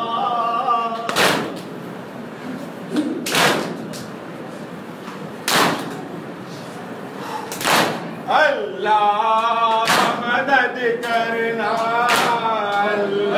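Mourners doing matam, beating their chests in unison with their palms: one sharp, loud slap about every two seconds. Partway through, a man's voice starts chanting a lament over the beats.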